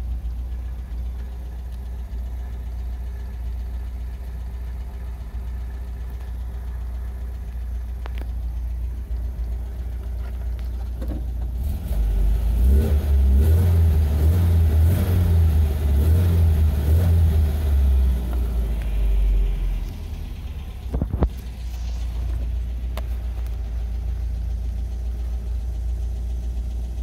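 1971 MGB GT's four-cylinder engine idling while warming up after a cold start, heard from inside the cabin. About twelve seconds in it runs louder for roughly eight seconds, then settles back to a steady idle.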